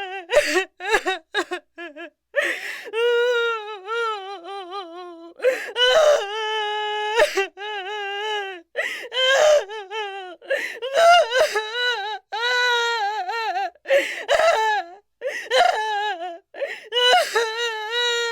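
Infant crying hard: a string of high-pitched wails, some held for a second or more with a wavering pitch that sags at the end, others short and choppy, broken by catches of breath.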